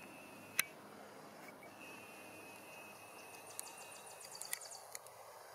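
Camcorder lens mechanics heard through the built-in microphone while zooming: a sharp click about half a second in, a thin steady whine from the zoom motor, then a quick run of small ticks near the end.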